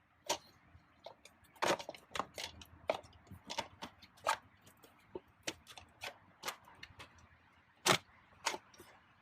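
Plastic steering column trim covers clicking and snapping as they are worked loose: a string of irregular sharp clicks, the loudest near the end.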